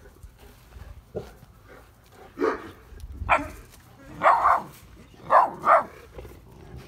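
An 8-week-old Neapolitan Mastiff puppy giving about five short, sharp alarm barks in a row, starting about two seconds in, at a figure he takes for a stranger.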